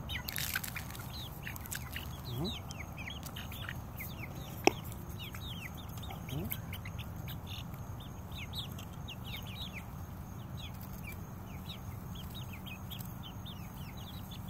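Six-week-old juvenile chickens peeping: many short, high, downward-sliding cheeps in a steady scatter. A single sharp click comes about five seconds in.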